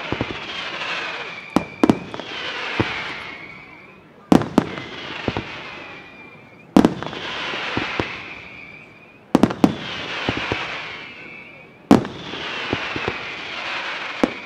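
Aerial firework shells bursting: sharp bangs every two to three seconds, some in quick pairs, each followed by a falling whistling hiss that fades away.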